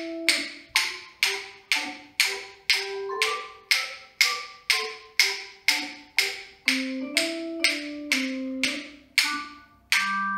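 Wooden claves (rhythm sticks) struck together about twice a second, in time with a high, ringing instrumental music track; the knocking stops about nine seconds in while the music carries on.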